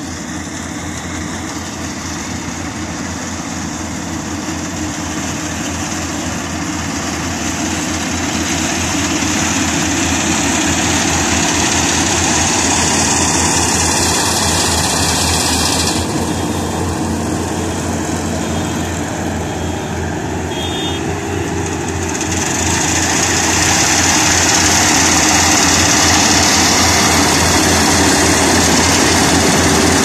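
FMWorld tracked rice combine harvester running under load as it cuts through the paddy, a steady engine drone with broad machinery clatter. It grows louder as the machine comes close.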